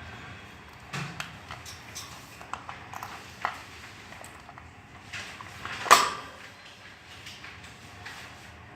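Alexandrine parakeet's beak clicking and tapping as it bites at a lemon: scattered small clicks, with one louder sharp snap about six seconds in.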